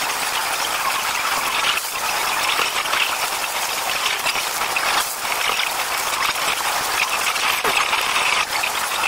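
Loud, steady din of a pachinko parlor: the dense rattle of many machines and their steel balls, with no single sound standing out.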